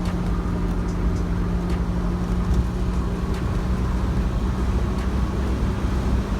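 Steady engine and road noise heard from inside a moving car, with a constant low hum.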